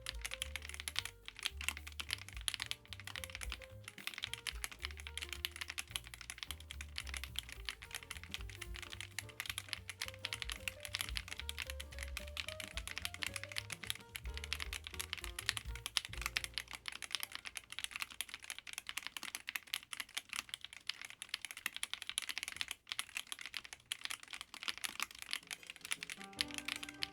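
Continuous fast typing on a MonsGeek M1W mechanical keyboard with an aluminium case and gasket mount, a dense run of key clacks, over background music.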